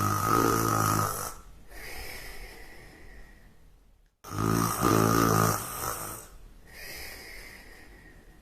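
A person snoring heavily, two full breaths about four seconds apart: each is a loud rasping snore followed by a softer breath out.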